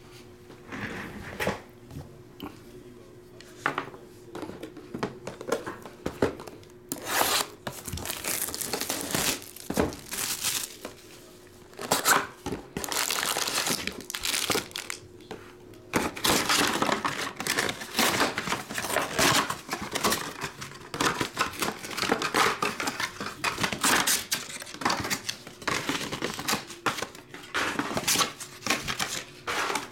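A sealed trading-card hobby box is torn open, and then its foil card packs crinkle as they are pulled out and stacked. There are only a few light clicks for the first seven seconds, then near-continuous loud tearing and crinkling.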